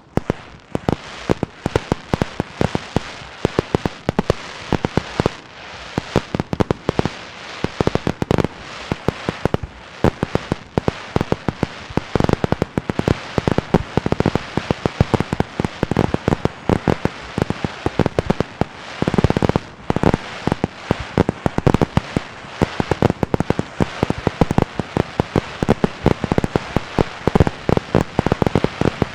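Fireworks and firecrackers going off in a dense, continuous barrage of sharp bangs and crackling, with a heavier burst about nineteen seconds in.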